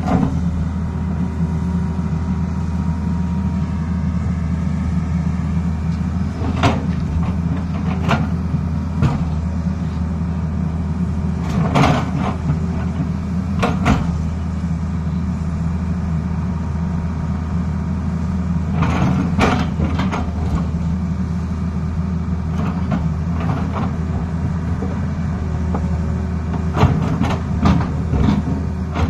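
Tata Hitachi 220 hydraulic excavator's diesel engine running steadily while the bucket digs into soil and rock, with scattered sharp knocks of stone against the steel bucket.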